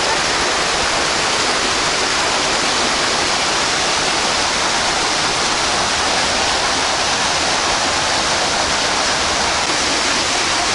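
Water jetting into a concrete trout pool, splashing in a steady, even rush.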